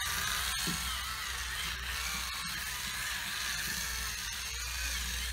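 Hurricane Spin Duster's small electric motor whirring steadily as its spinning head brushes over a plastic appliance, the pitch wavering slightly, with a few faint ticks; it cuts off at the very end.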